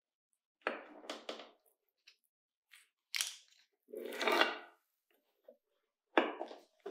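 A long knife cutting down through a slab of marzipan, apricot jelly and gingerbread layers on baking paper, with crunching and paper rustling as the cut strips are pushed apart. The noise comes in four short bursts.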